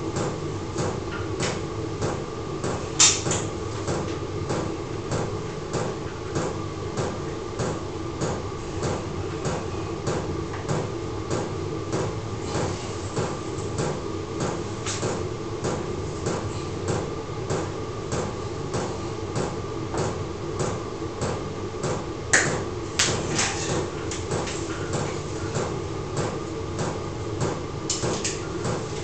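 12 V diesel air heater running: its fuel dosing pump ticks evenly, about twice a second, over the steady hum of the heater. A couple of louder sharp clicks come about 3 seconds in and near 22 seconds.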